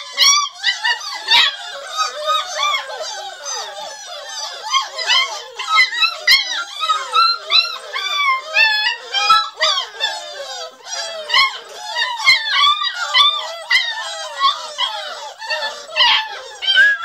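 A litter of beagle puppies whining and yelping together: many high, arching cries overlapping without pause.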